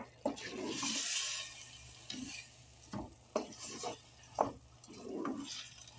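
Wooden spoon stirring whole black urad lentils and mutton frying in oil in a pot. The oil sizzles, swelling about a second in, and the spoon knocks against the pot several times.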